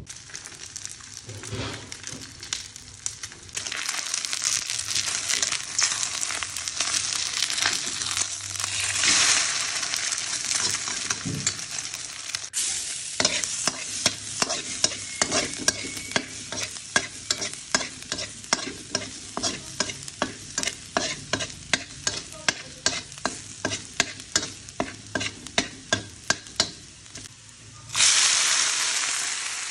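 Chopped garlic frying in oil in a frying pan, sizzling steadily, while a metal spatula stirs and taps against the pan about twice a second. Near the end a load of leafy greens goes into the hot pan and the sizzling jumps much louder.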